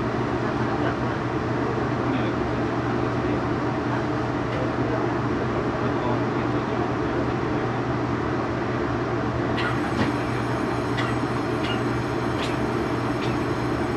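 Cabin ambience of a TEMU2000 Puyuma electric train standing at a platform: a steady low hum with passengers' voices murmuring. A faint high whine with light ticks joins about ten seconds in.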